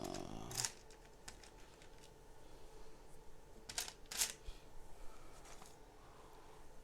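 Light clicks of plastic Lego Technic pieces being handled and set down, two of them close together about four seconds in, over a faint steady hum.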